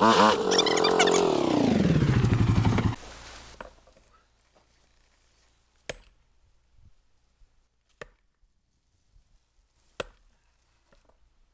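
ATV engine running, then winding down in pitch and cutting off about three seconds in. After that come three single sharp strikes, about two seconds apart, as a long-handled tool hits a concrete pole.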